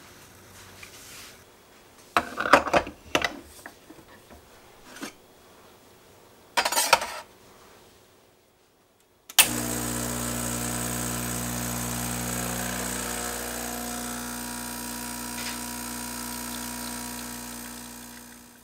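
Metal knocks and clatters as the portafilter is tamped and handled, then the Gaggia Classic espresso machine's vibratory pump starts abruptly about nine seconds in and buzzes steadily as it pulls a shot, fading out near the end.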